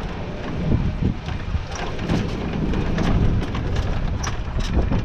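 Wind buffeting the microphone, a heavy uneven rumble, with scattered clicks and knocks throughout.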